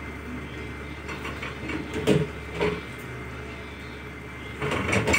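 Chicken gravy simmering in an open pressure cooker over a steady low hum, with a few louder bubbling plops about two seconds in and again near the end.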